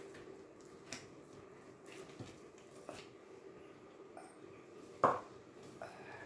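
Hands kneading and pressing soft scone dough on a plastic-covered table: faint squishing and light taps over a low steady hum, with one sharper knock about five seconds in.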